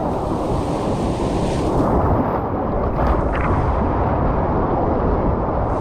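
Wind buffeting the kayak-mounted camera's microphone in a steady low rumble, over surf washing around the kayak's hull as it is pushed into the shore break. A brighter hiss of wash comes about one and a half seconds in.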